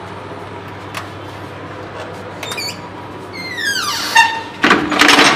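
Metal door bolt and window grille being handled: a click, a short squeak, then a drawn-out squeak falling in pitch, and a louder clatter near the end.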